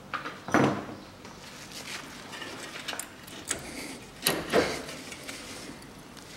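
Front brake caliper being worked off its brake disc by hand: scattered metallic clunks and scrapes, loudest about half a second in and again just past four seconds.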